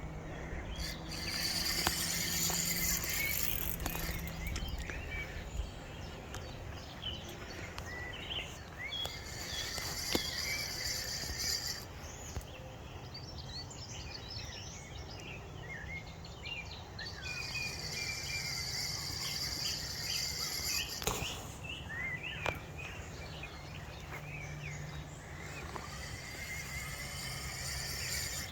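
Lakeside evening ambience: many short birdsong chirps over a high hiss that swells and fades in stretches of a few seconds, with a low steady hum beneath.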